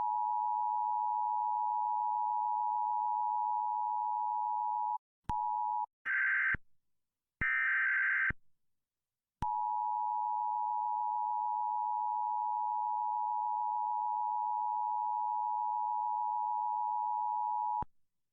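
Emergency alert attention tone: a steady electronic tone near 1 kHz. A few seconds in it breaks off into a short tone and two brief harsh data screeches, the digital header bursts that start an alert. The tone then resumes for about eight seconds and cuts off just before the end.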